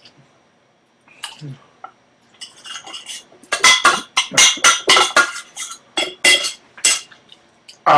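Metal utensil scraping and clinking against a metal pot, the last of the macaroni and cheese being scraped out. The strokes come quickly, about a dozen sharp, ringing clinks in the second half.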